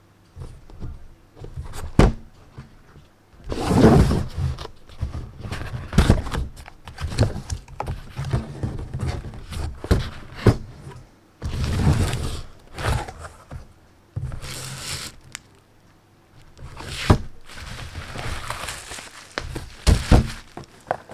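Packaging being handled while a power bank is unboxed: a series of knocks and thunks on the box, mixed with short bursts of rustling and sliding.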